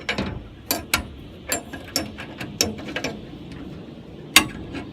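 Metal clicks and clinks of a chainsaw tool (scrench) working a nut on the steel bracket of an Alaskan chainsaw mill as it is snugged up, about seven uneven knocks, the loudest near the end.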